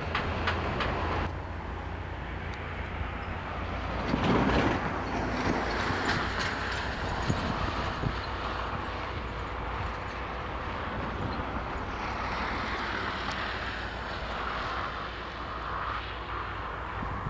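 Freight train of container flats and tank cars rolling slowly behind a GM GT22CW diesel locomotive, with a steady low rumble and wheel clatter on the rails. There are a few clicks near the start and a louder swell about four seconds in.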